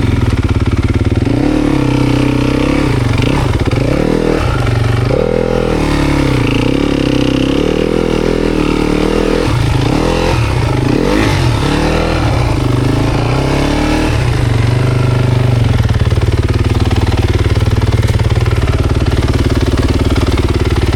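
Dirt bike engine revving up and down repeatedly while riding, then running at a steadier, lower speed for the last several seconds.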